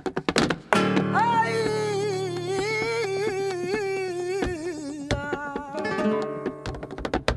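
Rapid flamenco footwork, heels and toes tapping the stage, breaks off as a flamenco singer comes in about a second in with a long, wavering, ornamented sung line over guitar, held for about five seconds. The rapid footwork taps return near the end.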